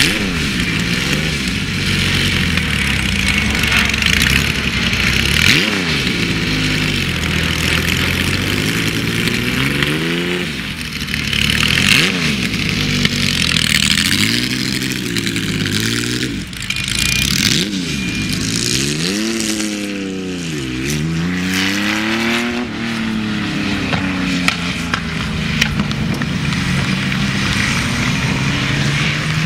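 Porsche 906 race car engine being driven and revved, its pitch climbing and falling again and again as the throttle is opened and closed, with a deep dip and climb about two thirds of the way through.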